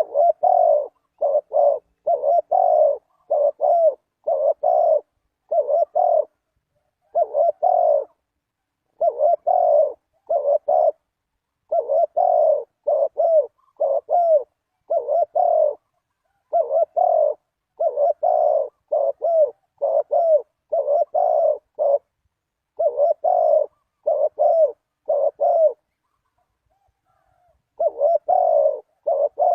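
Spotted dove cooing: short throaty phrases repeated one after another in quick groups, with a pause of about two seconds near the end.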